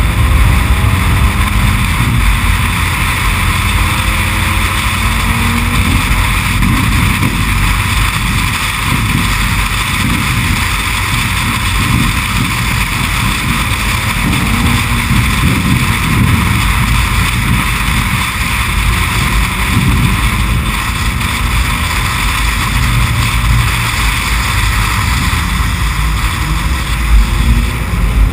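Race car engine running hard at speed, heard from inside the cockpit under heavy wind and road noise. Its note climbs in the first second or two as the car accelerates, then holds steady.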